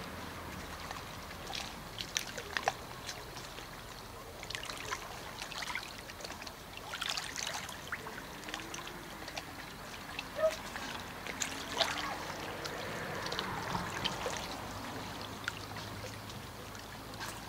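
Riverside flowing water, a steady rushing hiss, with short high ticks scattered throughout.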